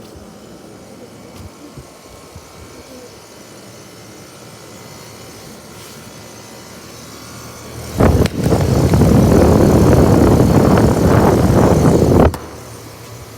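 Outdoor air-conditioner unit running with a steady sound; about eight seconds in, a loud rush of air from its fan blasts across the microphone for about four seconds and cuts off suddenly.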